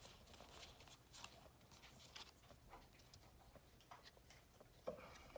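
Near silence, with faint scattered soft rustles and ticks of Pokémon trading cards being handled and flipped.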